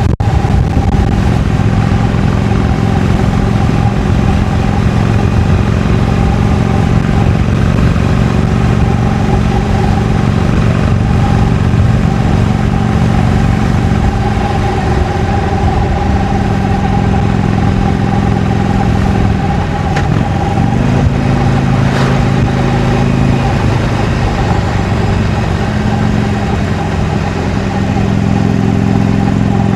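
Harley-Davidson Iron 883's 883 cc air-cooled V-twin running under way through its stock exhaust, holding a steady engine note. About two-thirds of the way through the note briefly dips, then settles again.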